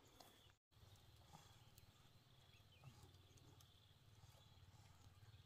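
Near silence: faint background hum with a few soft ticks, broken by a moment of total silence about half a second in.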